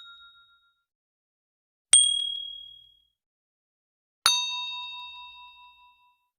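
Two separate ding sound effects: a high, short ding about two seconds in, then a lower ding with several higher overtones that rings out longer, about four seconds in.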